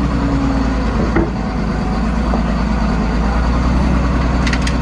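A motor drones steadily under a constant hiss, with no change in pitch or level.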